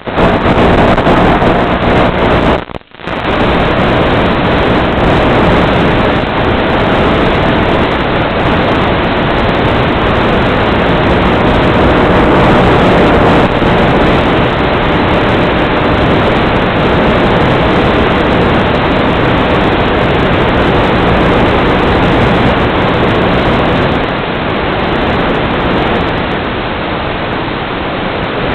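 Steady rush of wind and motor noise from an FPV aircraft in flight, picked up by the onboard camera microphone and carried over the analog video link, with a faint steady motor hum under the hiss. The sound cuts out briefly about three seconds in.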